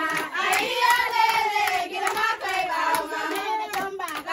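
Group of women singing a celebratory chant in unison, with steady hand clapping to the beat.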